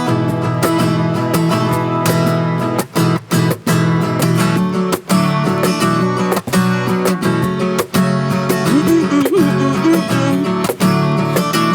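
Acoustic guitar strummed in a steady rhythm, an instrumental passage of a song between sung lines, with a few short breaks in the strumming.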